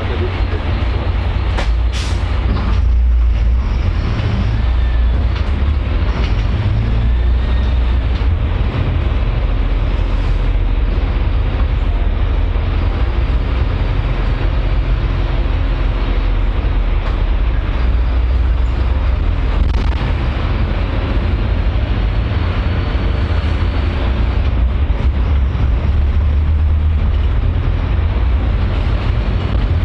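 A public transport vehicle running, a steady low rumble with a sharp click about two seconds in.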